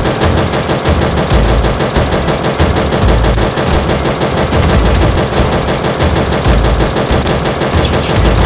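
Machine-gun fire sound effect dubbed over a toy blaster, a steady unbroken stream of shots about ten a second, with a low pulse underneath about once a second.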